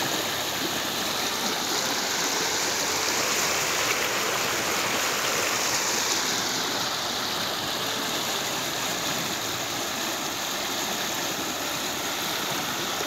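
Floodwater rushing and churning through a breached earth embankment: a steady, loud rush of turbulent water.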